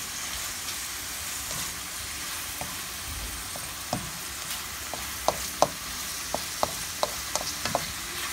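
Sliced hotdogs frying in a metal wok with a steady sizzle while being stirred with a spatula. From about halfway in, a run of sharp clicks and taps sounds as the spatula knocks against the pan, two of them louder than the rest.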